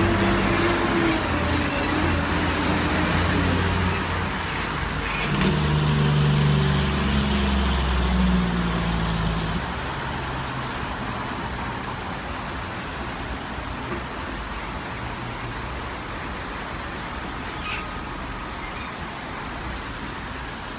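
A motor vehicle's engine running with a low hum whose pitch shifts. It drops away about ten seconds in, leaving a steady background rush.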